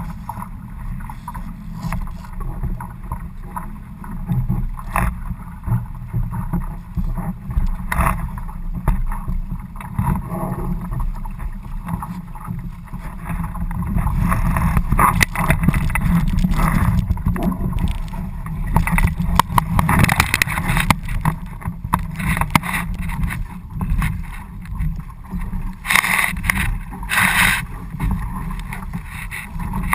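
A sailing dinghy under way: wind rumbling on the microphone, with water rushing and slapping along the hull. Louder bursts of splash and spray come about twenty seconds in and again near the end.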